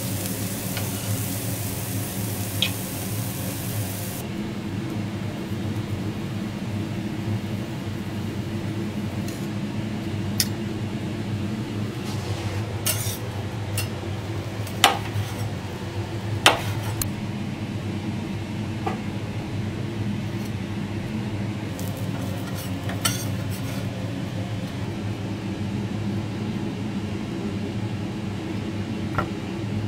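Steel teppanyaki spatula and knife clicking and scraping on a hot steel griddle and slate serving plates, with a sharp metal click now and then; the two loudest come about halfway through. Food sizzles on the griddle for the first few seconds, then the sizzle stops suddenly, leaving a steady low hum.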